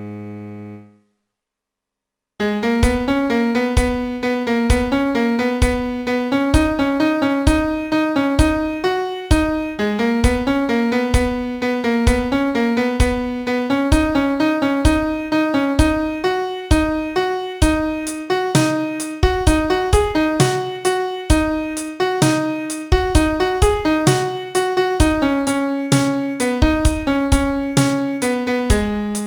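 Solo piano playing a song melody with a steady accompaniment of repeated struck chords. A held note fades out in the first second, and after a brief silence the piano comes back in at about two and a half seconds and plays on.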